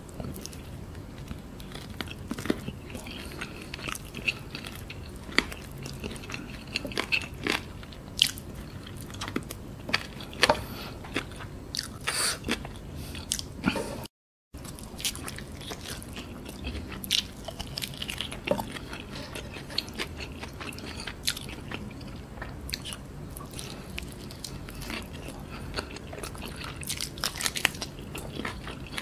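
Mouth sounds of someone eating fried chicken by hand: chewing and biting soft meat pulled from the bone, with many short clicks and smacks. A brief gap of silence about halfway through.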